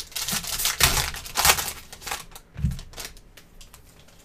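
Foil trading card pack wrapper crinkling sharply in bursts as it is handled and torn open, with a soft low bump about two and a half seconds in; the rustling fades lower toward the end.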